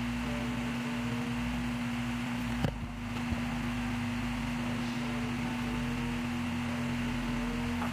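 A steady low hum with an even hiss, with a brief dip and a click about two and a half seconds in.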